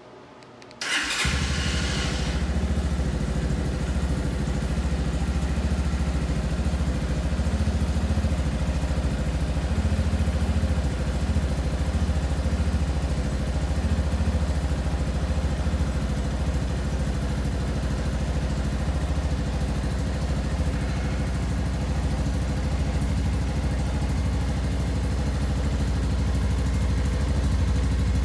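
Shelby Renz 200 motorcycle engine started about a second in, with a brief burst from the starter as it catches, then idling steadily.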